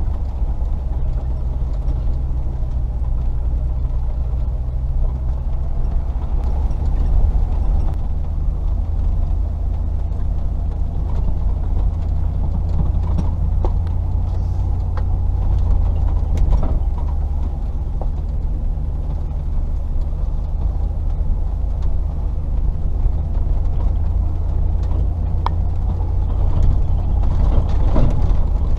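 Range Rover P38's 4.0-litre V8 engine running steadily as the vehicle drives slowly along an off-road track, with scattered knocks and rattles.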